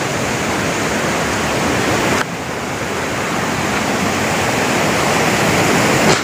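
Waterfall: heavy water pouring down steadily as a dense rushing noise, with a sudden small drop in level a little over two seconds in.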